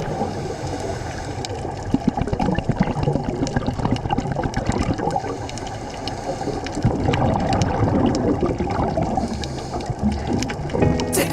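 Water bubbling and gurgling, recorded underwater on a scuba dive, with many small crackling clicks through it.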